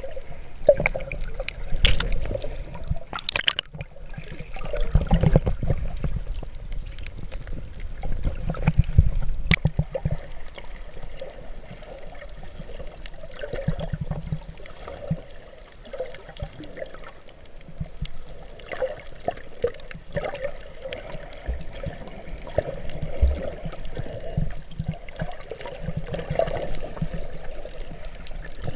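Muffled underwater water movement, a low, uneven sloshing and gurgling heard from below the surface, with a few sharp clicks in the first ten seconds.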